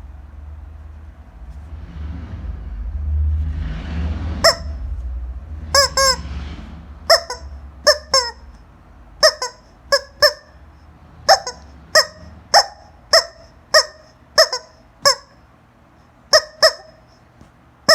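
Rubber chicken squeeze toy being squeezed over and over, giving about twenty short honking squeaks, several in quick pairs. A couple of seconds of rustling handling noise come before the squeaks start, about four seconds in.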